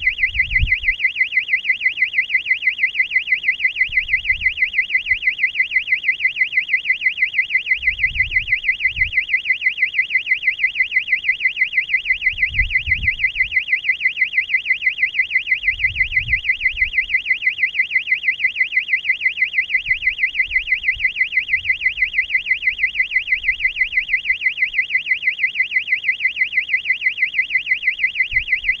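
Electronic alarm on the balloon payload sounding a high-pitched warbling tone that sweeps up and down about four times a second without a break. A few faint low thuds sound underneath.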